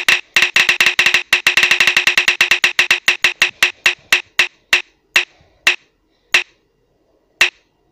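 Spin-the-wheel phone app's ticking sound effect as the wheel spins down. A rapid run of clicks, about ten a second, slows steadily as the wheel loses speed, thinning to single clicks about a second apart, with the last one near the end.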